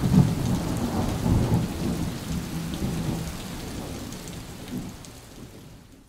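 Low, thunder-like rumble that steadily fades away to silence.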